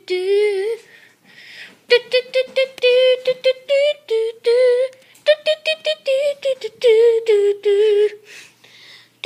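A child's high voice singing a wordless sing-song tune in quick short notes, some held with a wobble, broken twice by a breathy pause.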